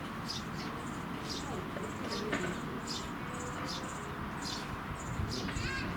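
Eurasian tree sparrows at a nest chirping over and over, short high chirps several a second, some drawn out as brief flat notes, over a steady background hiss.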